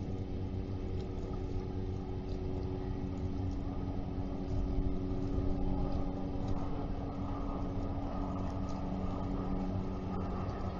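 Steady engine hum: a low rumble with a few held tones, swelling slightly in the middle.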